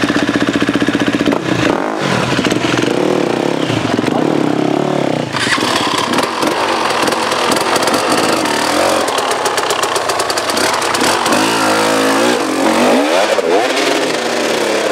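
Enduro dirt bike engine revving hard and unevenly, the revs repeatedly rising and falling with the throttle as the bike is ridden up through rocks.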